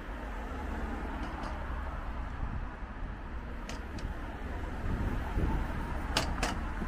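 City street ambience: a steady hum of traffic with a low rumble, and a few sharp light clicks that come in pairs, the loudest pair about six seconds in.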